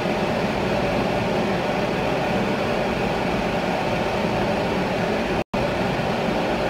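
Hot oil sizzling steadily as rice-flour batter fries on a kembang goyang rosette mold and a loose cookie in the pan. The sound cuts out for an instant about five and a half seconds in.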